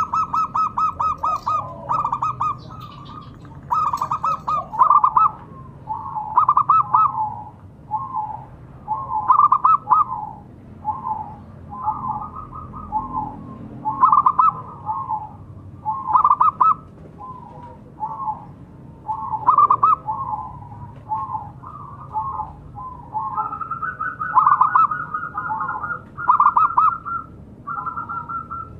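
Zebra dove (perkutut) singing: short phrases of rapid, staccato cooing notes, repeated every second or two with brief gaps between them.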